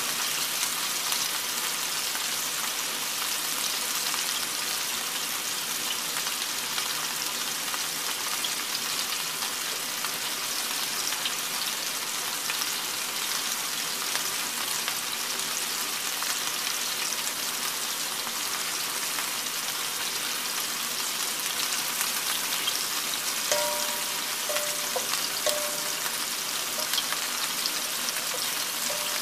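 Meatballs frying in hot oil in a cast-iron skillet: a steady sizzle with constant small crackles. Near the end, a wooden spatula scrapes and turns them, adding a few brief squeaks.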